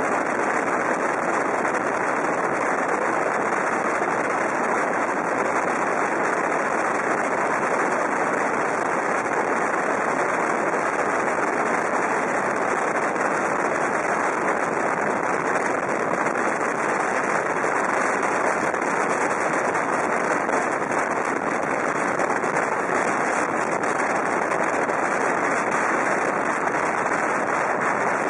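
Steady rush of wind and road noise from a motorcycle trike riding at speed through a road tunnel: an even noise that neither rises nor falls.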